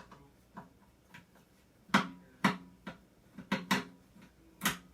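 A string of sharp metallic clicks and knocks at irregular intervals, faint at first and louder from about halfway through, from hand tools and metal parts being handled while a microwave is taken apart.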